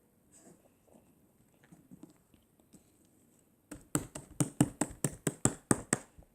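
Homemade slime being worked by hand, faint squishing at first, then a quick run of about a dozen sharp pops, roughly five a second, lasting about two seconds.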